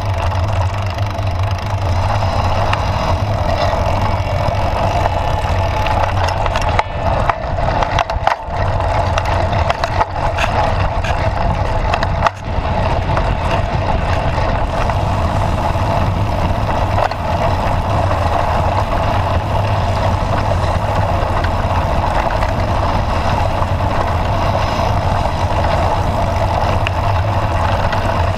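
Bike rolling over a dirt trail: a loud, steady rumble of tyres and rattle from the bike, with a few sharper knocks from bumps about seven, eight and twelve seconds in.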